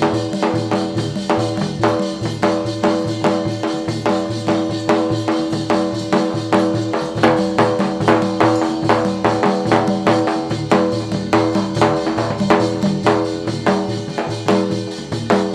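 Folk music with a fast, even drum beat, about four strokes a second, over a steadily held melody line.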